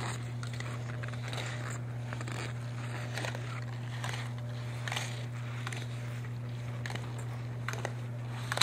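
A steady low hum with faint, scattered crackles and scrapes.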